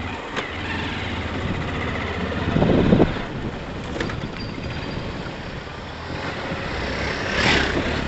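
Motorcycle engine running steadily while riding slowly over a rough dirt road, with road and wind noise. It swells louder briefly about three seconds in and again near the end.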